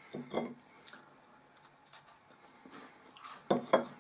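Quiet room tone with a short faint voice sound just after the start and two sharp clicks about three and a half seconds in.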